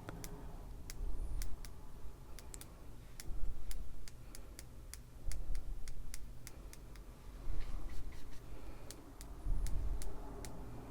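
Paintbrush loaded with thinned white acrylic paint being tapped to splatter it, giving sharp, irregular light clicks about two or three a second. Dull low bumps of handling on the desk come every couple of seconds.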